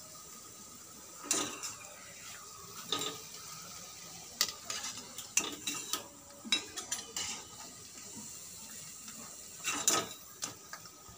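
A perforated metal skimmer scraping and clinking against the side of a kadhai as fried Manchurian balls are scooped out of hot oil, over a steady sizzle of frying. The clinks come at irregular moments, the loudest near the end.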